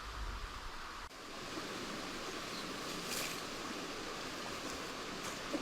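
Steady outdoor background noise with a brief rustle about three seconds in.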